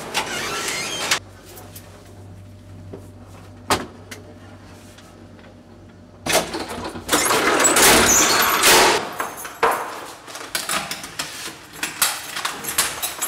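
Keys working a building door lock, then a low steady hum with a single sharp click. About six seconds in comes a loud rattling clatter lasting about three seconds, the old lift's folding panel door being worked, followed by scattered clicks and knocks.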